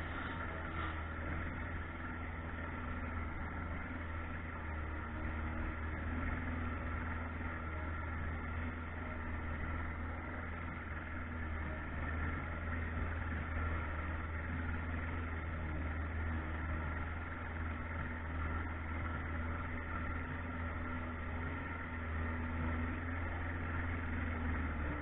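Boat motor running at a steady speed, a constant low drone.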